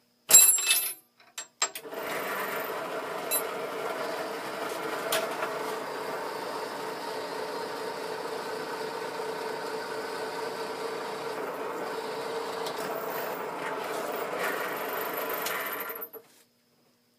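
Bench drill press motor running steadily for about fourteen seconds, starting about two seconds in and stopping near the end. It is preceded by a few sharp metallic clicks.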